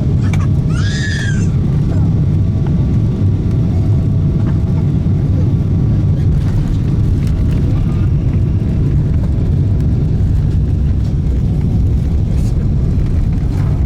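Steady low rumble of a Boeing 777-300ER's engines and airflow, heard from inside the economy cabin. A brief high squeal sounds about a second in.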